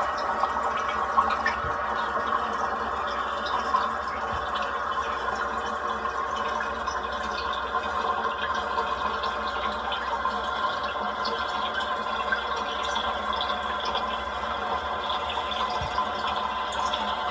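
Toilet tank refilling with a steady rush of water.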